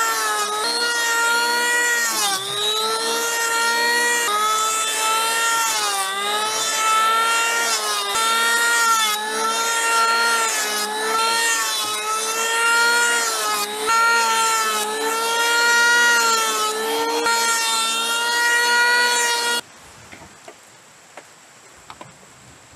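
A 5-inch electric hand planer running and shaving a larch post: a high motor whine whose pitch sags and recovers again and again as the blades bite on each pass. It shuts off suddenly about three seconds before the end.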